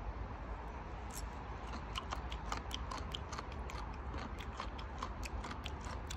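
Close-up chewing of firm raw horned turban snail meat: irregular crisp clicks, several a second, starting about a second in, over a low steady rumble.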